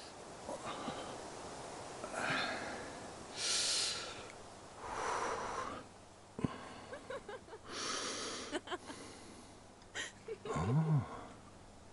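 An old man breathing heavily and gasping in a series of separate breaths, with a sharp click about halfway through and a short low rising-and-falling groan near the end.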